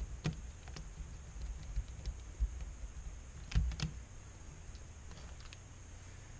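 Light clicks and taps from small parts of an LCD panel being handled and fitted back into place, the sharpest about a third of a second in and a pair around three and a half seconds in, over a faint steady hum.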